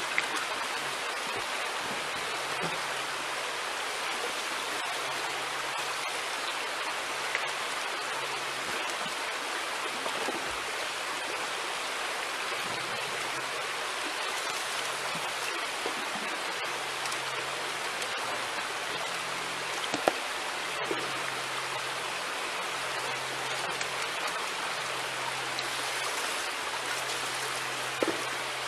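A creek rushing steadily, an even wash of water noise that does not change. A few sharp knocks stand out, the loudest about two-thirds of the way through and just before the end.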